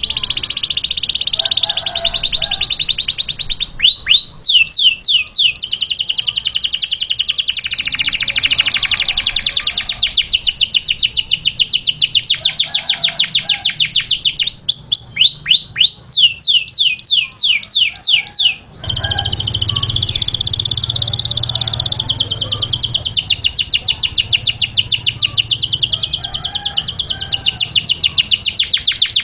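Domestic canary singing: long, rapid trills with groups of repeated downward-sweeping notes. The song breaks off for a moment about two-thirds of the way through and starts again with another fast trill.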